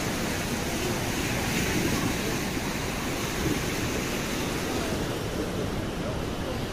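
Steady rushing noise of wind and floodwater.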